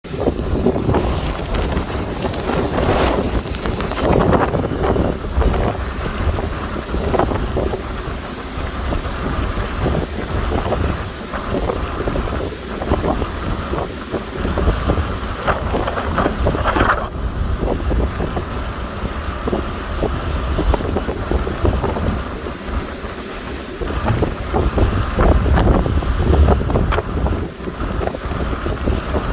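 Stick arc welding: the electrode's arc crackling steadily, with a brief sharper burst about 17 seconds in.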